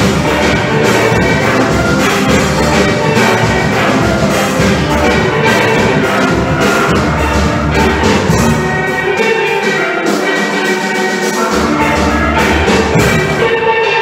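Steel orchestra playing live: many steel pans sounding together over a drum beat. The bass drops out for a couple of seconds about nine seconds in, then comes back.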